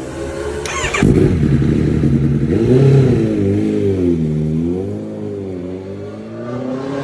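Kawasaki ZX-10RR superbike's inline-four engine running, getting suddenly louder about a second in as the bike pulls away, then its pitch rising and falling several times as it rides off at low speed and fades.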